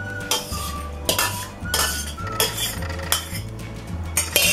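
Steel spoon clinking and scraping against a stainless steel bowl as soft boiled tomatoes are scooped into a mesh strainer, with a knock every half second to second and a louder clatter near the end.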